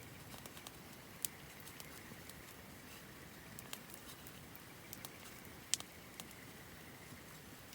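Wood campfire crackling: scattered sharp pops over a steady low hiss, the loudest pop about three-quarters of the way through.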